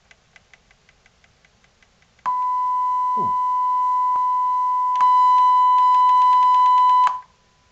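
A steady, high-pitched test tone from a loudspeaker driven by a Nakamichi IA-1z amplifier, after a few faint rapid ticks. The tone cuts in suddenly at full loudness about two seconds in, steps louder about five seconds in and cuts off abruptly just after seven seconds. The amplifier's volume control has no effect and leaves the output stuck at full volume.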